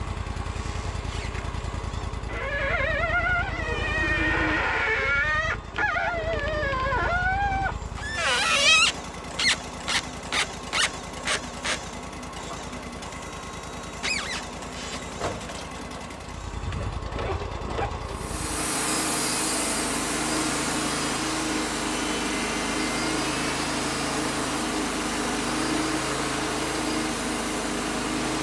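Wood-Mizer LT35 band sawmill's engine running and its blade cutting through an incense cedar log, a steady dense noise from about two-thirds of the way in. Before that, the engine runs at a lower, even pulse with wavering tones over it, then a quick run of sharp knocks about half a second apart.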